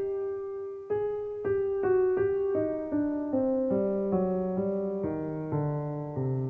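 Background piano music: a slow melody of single struck notes stepping downward, with lower notes joining about four seconds in.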